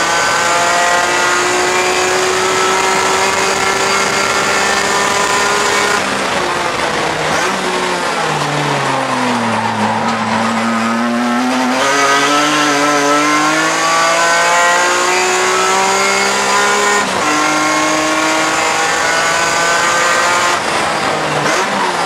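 BMW E46 M3 race car's inline-six engine heard from inside the cockpit, climbing steadily in pitch under full throttle, then falling away as the car slows about six seconds in. It climbs again out of the corner, with upshifts marked by sudden pitch drops near 17 seconds and near the end.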